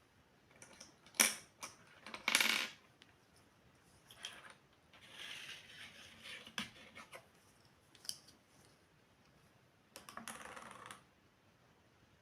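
Small pieces of a miniature toy kitchen set handled and set down: a string of light clicks and clinks, with a few short rattling bursts.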